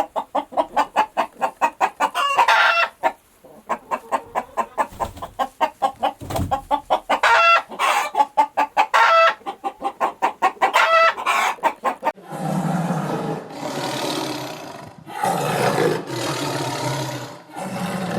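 Chickens clucking in quick pulses, broken by short high squawks. About twelve seconds in, it gives way to a deep, rough roaring that comes in several long swells.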